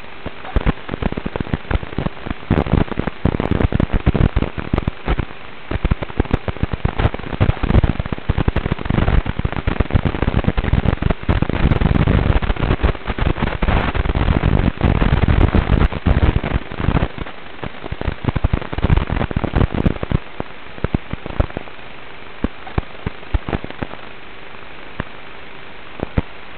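Traxxas Slash 1/10-scale RC truck bashing over rough ground, heard through its onboard camera microphone as a dense crackling rattle of jolts and impacts over a steady hiss. The rattle thins to scattered clicks about twenty seconds in.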